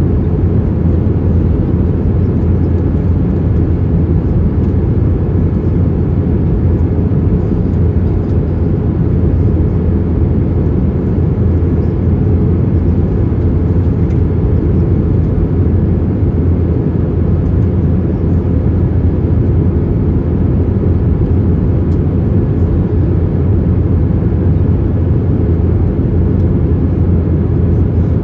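Steady low rumble of engine and airflow noise inside the cabin of an Airbus A321, heard from a window seat by the wing during the approach descent.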